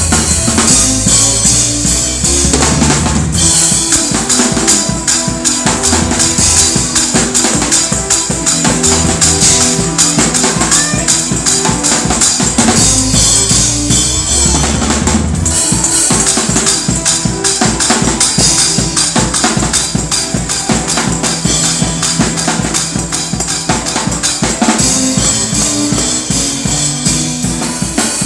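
Drum kit played fast and loud in a gospel praise break: rapid snare and bass-drum hits with cymbals, over a bass line of shifting low notes.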